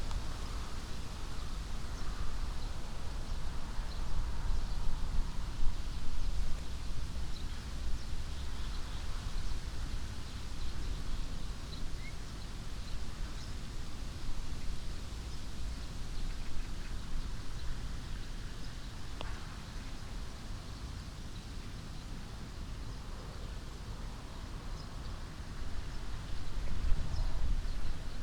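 Wind blowing through an old alder tree: a steady rustle of leaves and branches over a low rumble of wind on the microphone, gusting stronger near the end. Faint bird chirps come through now and then, and there is one sharp click about two-thirds of the way in.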